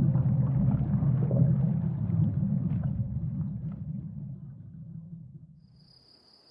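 A deep, rough rumble that fades away steadily to near silence over about six seconds.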